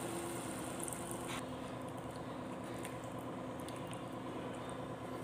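Water pouring into a hot pot of fried chicken masala with a hissing sizzle, stopping abruptly about a second and a half in. A steady low mechanical hum runs underneath throughout.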